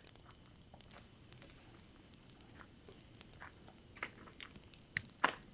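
Crickets chirping steadily at night, with a few sharp clicks and scuffs near the end.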